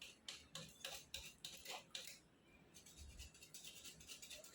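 Faint, irregular light clicks and scrapes, with a short quieter pause in the middle.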